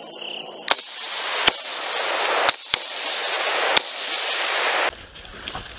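Five rifle shots fired at hogs at night, sharp cracks coming irregularly over about three seconds (two in quick succession near the middle), over a loud rushing hiss that grows and then cuts off suddenly near the end.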